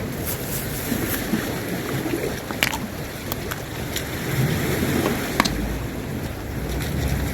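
Wind buffeting the microphone over sea water washing against the shore, with a few sharp clicks scattered through.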